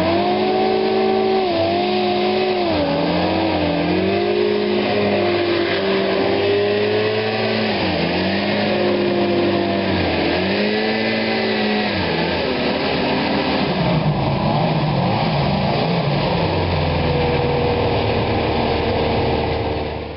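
MAD-81 rescue hovercraft's engine and ducted fan running. The engine speed dips and climbs again several times, then holds steadier near the end.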